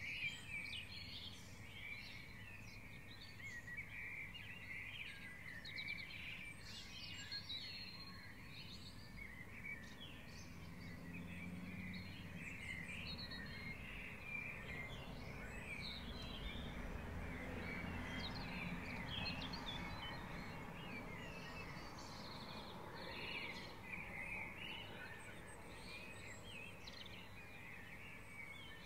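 Dawn chorus: many songbirds singing at once, with overlapping chirps and trills throughout, over a steady low background rumble.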